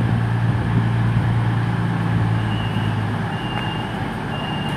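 A CrossCountry Voyager diesel multiple unit idling at the platform: a steady low diesel hum that eases off slightly about three seconds in, with a faint high whine coming and going.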